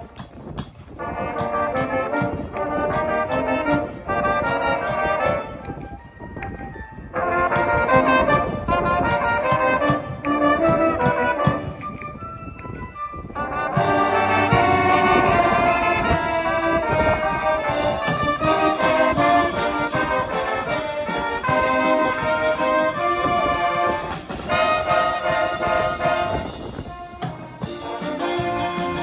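A brass band playing live, with horns and a drum kit keeping a steady beat. After a brief softer passage just before the middle, the band comes in fuller and more sustained.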